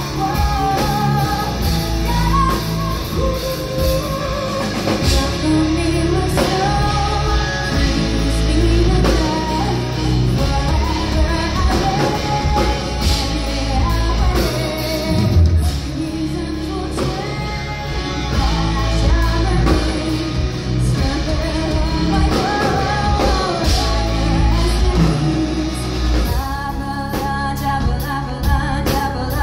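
Live folk-metal band playing, with female lead vocals over electric guitar and drums.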